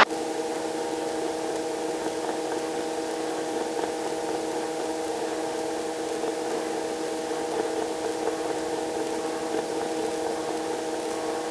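Robinson R22 helicopter in flight, heard from inside the cabin: a steady mechanical hum made of several fixed tones over an even hiss, holding level without change.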